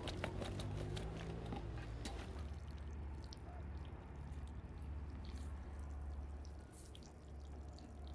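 Washing water trickling out of a tipped aluminium basin, with wet cut vegetable pieces clicking and shifting against the metal, the clicks thickest in the first two seconds. A low steady rumble runs underneath.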